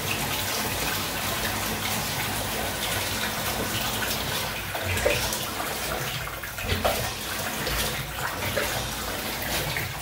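Water running steadily from a newly fitted Moen slip-on tub spout into the bathtub. Water is still bubbling out of the shower head's nozzles at the same time, which the plumber puts down to a faulty tub spout or a bad valve cartridge.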